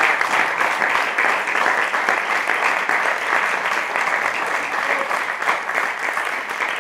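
Audience applauding: dense, steady clapping that keeps up without a break.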